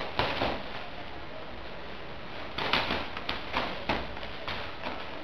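Padded sparring gloves and foot protectors thudding as taekwon-do punches and kicks land, a couple of hits at the start and a quick flurry of them in the middle.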